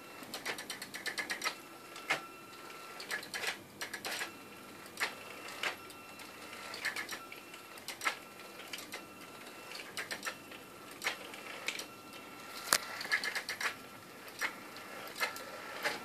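A homemade robotic vacuum cleaner's small drive motors whining in short stop-start spurts, with many irregular clicks, as the robot drives itself under its autonomous program.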